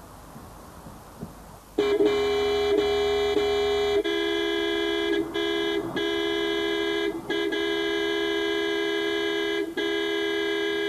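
Car horn held down in one long blast starting about two seconds in, two notes sounding together, with several brief breaks where it is let off and pressed again. A few faint clicks come before it.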